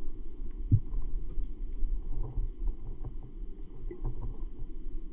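Muffled underwater noise picked up by a camera inside a waterproof housing: a steady low rumble of water movement, with faint scattered clicks and a brief low squeak a little under a second in.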